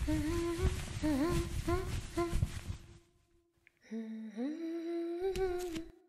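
A woman humming a slow, eerie tune that breaks off for about a second midway. It resumes with a long held note that slides up into it, with a few sharp clicks near the end.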